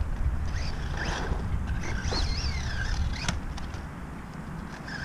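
Electric motor of an LC Racing EMB-T RC truggy whining up and down with the throttle, with one sharp click a little past three seconds in, over wind noise on the microphone.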